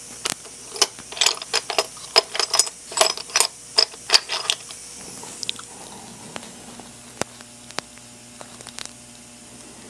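Small metal cutting tools clicking and clattering against each other in a container as it is handled and searched, a quick run of sharp clicks for about four and a half seconds, then only a few scattered clicks.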